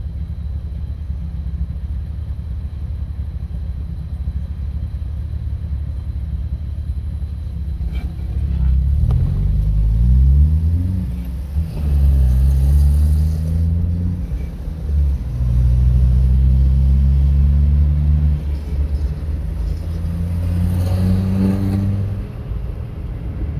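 Car engine heard from inside the cabin, running low and steady at first. About eight seconds in it pulls away, rising in pitch and dropping back at each gear change, then runs on at a steadier pitch.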